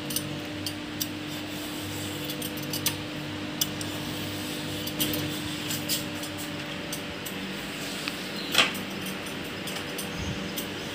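Hand vegetable peeler scraping the skin off a bottle gourd: scattered short, soft strokes over a steady hum, with one louder scrape late on.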